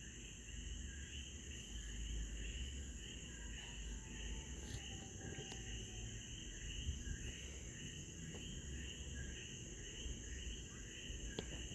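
Steady high-pitched chirring background noise over a low rumble, with a few faint clicks.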